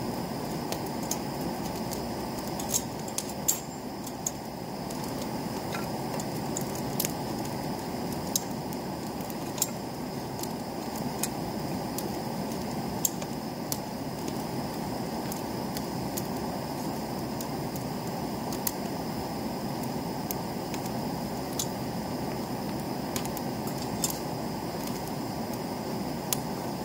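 Split firewood burning in an open fire pit, crackling with sharp, irregular pops every second or so over a steady low rushing noise.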